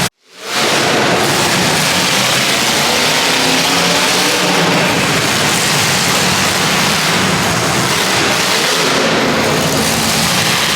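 Demolition derby cars' engines running and revving in a loud, continuous din. The sound cuts out for a moment just after the start.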